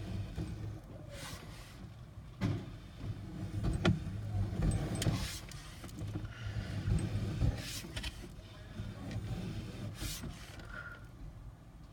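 Sewer inspection camera rig being worked as the push cable is fed into the line: irregular rubbing and rattling with a few sharp knocks, over a low steady hum.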